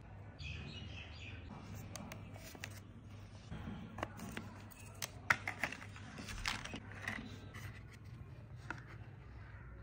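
Hands handling pliers and the clear plastic blister pack of a fiber-optic shotgun sight: scattered small clicks and taps, with a cluster of sharper clicks in the middle, over a low steady hum.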